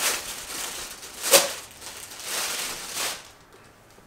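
Plastic packaging crinkling and rustling as a rash guard is pulled out of its bag, with a sharper crackle about a second in and a longer rustle after that; it dies away after about three seconds.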